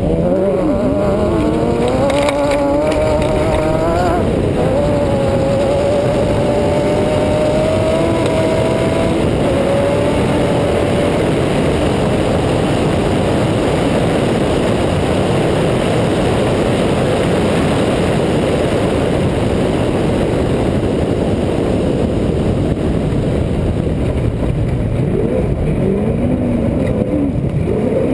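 Off-road race truck's engine running hard under full throttle over loud wind and dirt-road noise. The revs climb through the first few seconds and drop sharply about four seconds in, like an upshift. The engine then holds at high revs, and near the end the revs rise and fall.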